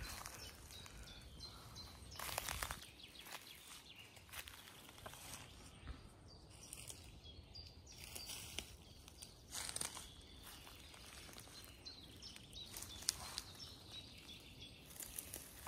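Faint rustling and crackling of dry forest leaf litter and twigs underfoot in short scattered bursts, with a few faint bird chirps.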